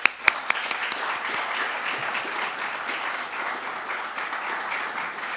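An audience applauding steadily. A few sharp, loud claps near the start come from hands clapping close to the podium microphone.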